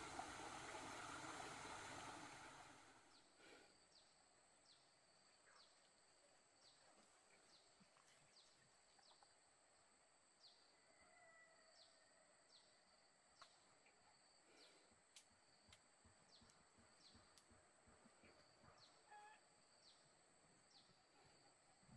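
Quiet forest ambience: a steady high-pitched insect drone with a short, falling chirp repeating a little faster than once a second, and a few scattered bird calls. A louder rushing noise fills the first few seconds and fades out about three seconds in.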